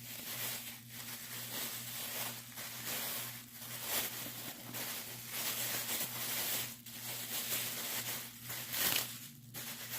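Irregular rustling and scraping handling noise as an old padlock is turned over and worked in the hands, over a steady low electrical hum.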